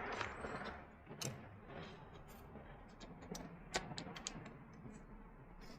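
Rush of compressed air into a tubeless gravel tyre dying away about a second in, then scattered light clicks and ticks.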